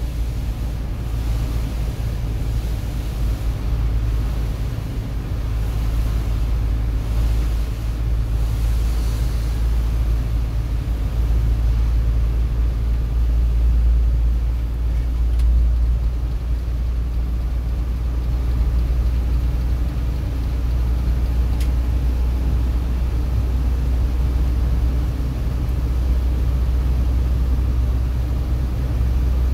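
Steady low engine and road rumble heard inside a vehicle's cabin while driving on a rain-wet highway, with a hiss of tyres on the wet road.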